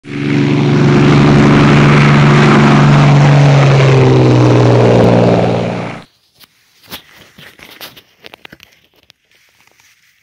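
A loud intro drone of held low tones under a rushing noise, some of the tones sliding down near the end, cutting off suddenly about six seconds in. After it come faint scattered scratches and rustles of a hand in soil and dead leaves.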